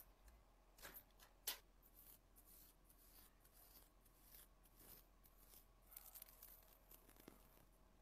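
Near silence with faint scattered clicks and rustles from hands handling the hair and a small tool; the clearest click comes about one and a half seconds in.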